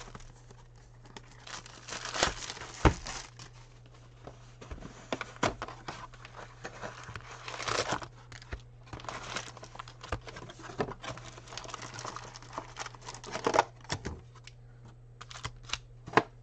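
A 1992 Fleer Ultra trading-card box being opened and its wrapped card packs pulled out and set down: irregular crinkling and tearing of pack wrappers and cardboard, with sharp snaps and taps, the sharpest about three seconds in and just before the end. A steady low electrical hum lies underneath.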